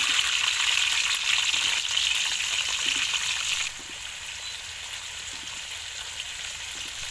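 Thin potato slices sizzling in hot oil in a wok: a dense, crackling frying hiss that drops suddenly to a quieter sizzle about halfway through.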